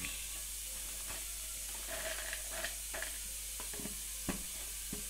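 Thin plastic bag crinkling as small dry groceries are tipped from it into a plastic storage container, with scattered light clicks, then a sharp click about four seconds in as the container's lid is pressed on. A steady hiss runs underneath.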